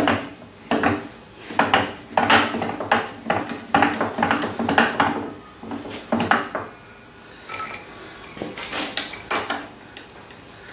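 Steel parts of a Douglas metal shaper's tool head clinking and clanking irregularly as its T-handle feed screw is wound down. A few sharper, ringing metal clinks follow in the last few seconds as an adjustable spanner is set against the handle as a spacer.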